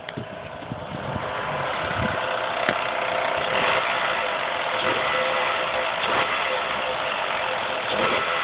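2004 Mazda 3's 2.3-litre four-cylinder engine running with a loud, annoying racket, which the owner puts down to the timing chain. It grows louder over the first couple of seconds, then holds steady.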